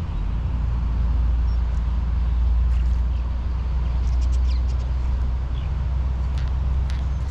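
Wind buffeting the microphone as a steady low rumble, with a few faint light clicks in the second half.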